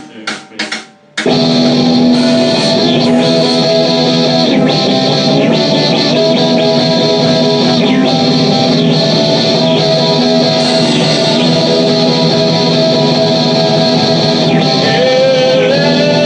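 Electric guitar played through a heavy amp effect preset in a rock jam. A few short strums, then about a second in a loud, dense, sustained guitar sound starts and holds steady, with a pitch sliding upward near the end.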